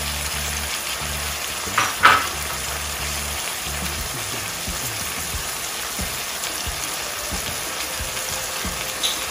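Lamb and onions sizzling steadily as they fry in a pot, with one short sharp clack about two seconds in.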